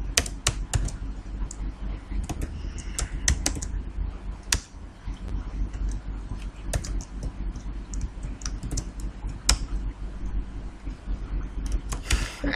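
Computer keyboard typing: irregular, separate keystrokes as code is entered, over a low steady hum.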